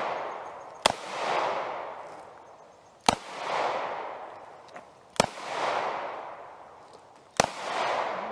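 Ruger LCR .38 revolver fired four times at a slow, even pace, about two seconds apart. Each sharp shot is followed by a long echo that fades away.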